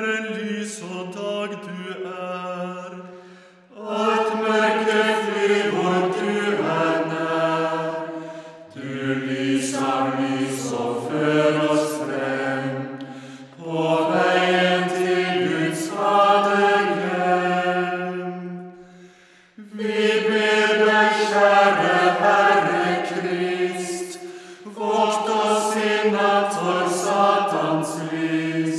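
Liturgical chant sung in Norwegian, unaccompanied, in phrases of about four to five seconds. Each phrase is followed by a short pause for breath.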